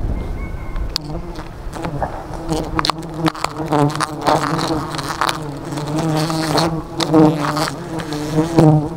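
Honeybees buzzing steadily around the climber, loudest in the middle and end, with bees swirling past the microphone. A few light knocks of hands and rope against the bark.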